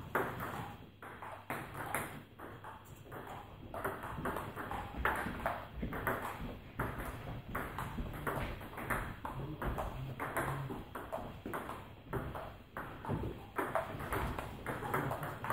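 Table tennis ball clicking off the bats and the table in rallies, a few sharp clicks a second.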